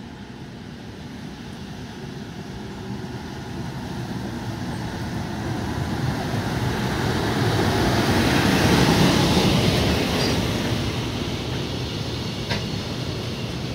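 A JR Freight EF510-500 electric locomotive approaching and passing at speed with a container freight train: the rumble builds steadily to its loudest as the locomotive goes by, then the container wagons roll past with steady wheel-on-rail noise. A single sharp clack sounds near the end.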